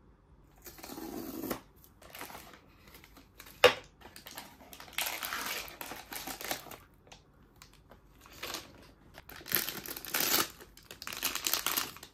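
Hands unboxing a cardboard blind box and its foil bag: cardboard flaps and packaging rustling in irregular bursts, a single sharp snap about three and a half seconds in, then dense crinkling of the foil wrapper near the end.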